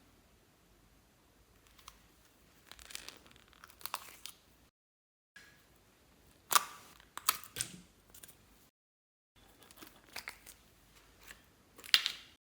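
Slime being squished and worked by hand: sharp clicks and crackly pops in short bursts, broken twice by dead silence at edit cuts.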